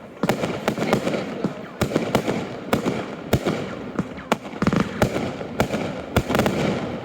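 Fireworks display: a rapid series of sharp bangs from exploding shells, about one or two a second, over continuous crackling.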